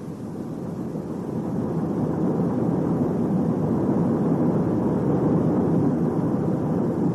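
A steady rumbling noise that swells over the first two seconds, holds, and dies away at the end.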